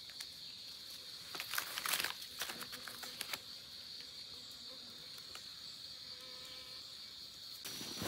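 Steady high-pitched drone of forest insects, with a few brief rustles in the first few seconds and a second, higher insect tone joining near the end.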